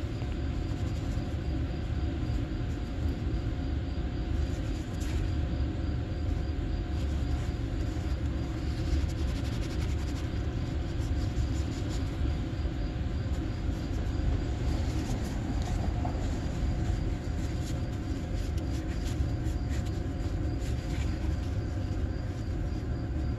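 Steady low background rumble with a faint steady hum, and faint scattered clicks and rustles as small hose fittings, washers and a rag are handled.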